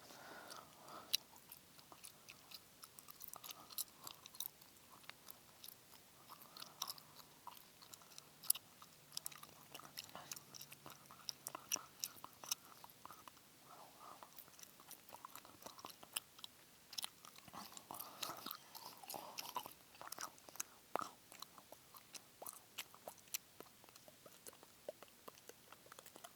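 Chewing gum close to the microphone: wet mouth clicks and smacks, quick and irregular, several a second.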